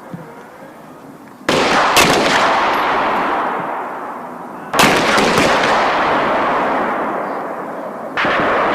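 Small-arms fire on a firing range: several weapons shooting overlapping rapid shots. It comes in three loud spells, starting about a second and a half in, about five seconds in, and just before the end. Each spell trails off in echoing reverberation.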